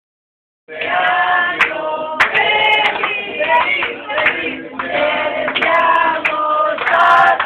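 A group of men and women singing a birthday song together, starting just under a second in.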